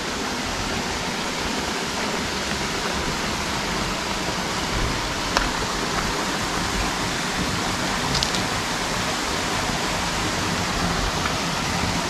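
Waterfall on a mountain stream, water falling in a steady rush.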